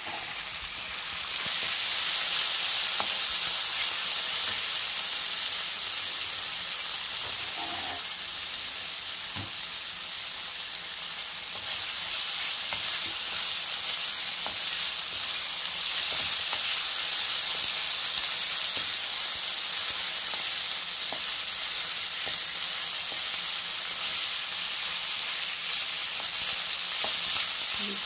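Boneless chicken pieces sizzling in hot oil in a pan, with a wooden spatula scraping as they are stirred and flipped. The sizzle swells louder about two seconds in and again around the middle.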